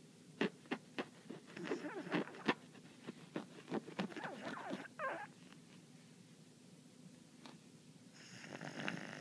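A sleeping Cavalier King Charles Spaniel snoring, with irregular rattling clicks through the first five seconds, a quiet stretch, then one longer breathy snore near the end.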